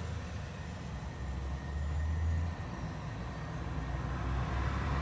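Low rumble of road traffic, swelling and then dropping off abruptly about two and a half seconds in.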